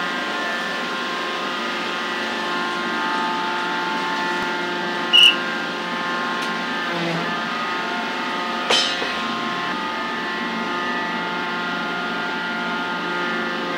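Pile-driving rig's machinery running with a steady hum. A short, loud, sharp metallic ring comes about five seconds in, and a sharper knock comes near nine seconds.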